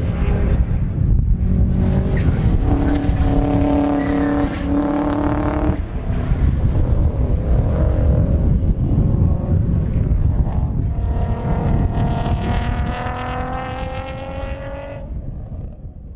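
Race car engines at full throttle on a circuit: one engine note climbs and cuts off sharply about six seconds in, then a second car's engine rises steadily in pitch as it accelerates, then fades away. Strong wind buffets the microphone throughout with a heavy low rumble.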